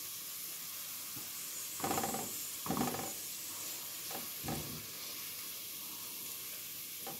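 Sliced onions sizzling in hot oil in a nonstick pot, fried brown into crisp beresta. A silicone spatula stirs and scrapes through them in a few short bursts in the middle, over the steady hiss of the oil.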